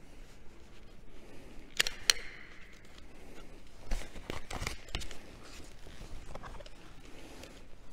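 Footsteps on a stone floor: irregular sharp taps and scuffs, the loudest a pair about two seconds in and a cluster around four to five seconds in, over a low hum of the hall.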